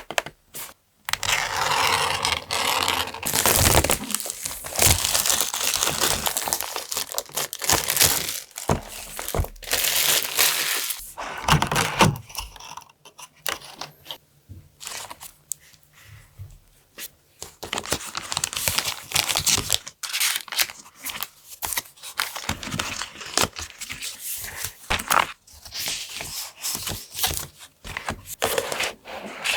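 Paper and packaging being handled close up: crinkling, rustling and tearing in stretches with short pauses between, as a journal kit is unboxed.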